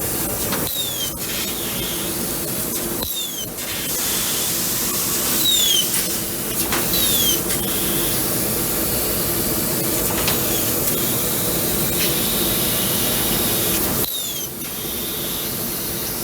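Yawei HLF 6000 W laser cutting machine at work: a steady hiss of assist gas and cutting. Short falling chirps come now and then, and the hiss dips briefly about three seconds in and again near the end.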